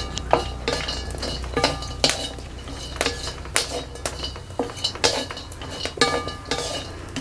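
A wooden spatula scrapes and knocks against a metal tava while sliced coconut is stirred and dry-roasted. The irregular strokes come about one or two a second, and each leaves the griddle ringing faintly.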